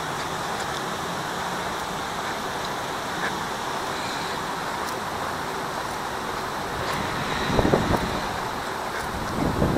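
Steady outdoor noise, with wind buffeting the microphone in two louder gusts, about three-quarters of the way through and again near the end.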